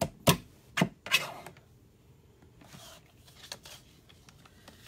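Paper trimmer cutting a thick cardstock cover: a few sharp clicks in the first second, a short scraping rasp of the blade about a second in, then faint rustling and light ticks.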